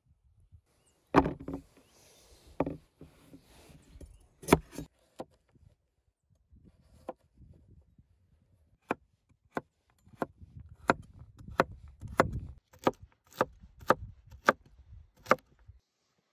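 Cleaver chopping carrots on a wooden cutting board: a few separate knocks, then a steady run of chops, about one and a half a second, in the second half.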